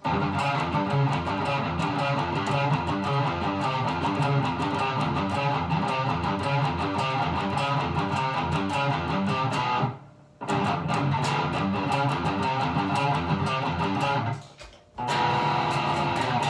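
Electric guitar, a Strat copy through a Line 6 amp with high gain, reverb and delay, playing a fast, chugging metal riff, with two short breaks, about ten seconds in and near the end.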